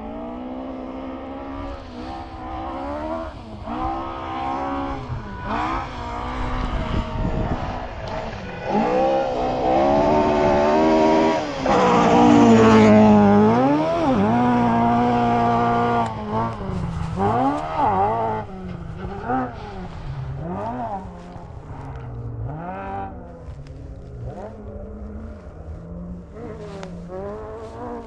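Rally car engine heard from onboard, revving hard and changing gear, its pitch climbing and dropping over and over. It is held loudest at high revs for several seconds in the middle, then goes on in shorter rises and dips as the car brakes and accelerates through corners, over a steady rush of tyre and road noise.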